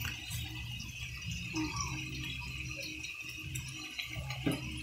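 Pork frying in a pan with oyster sauce, a steady sizzle, with a few light scrapes and taps of the spatula stirring it.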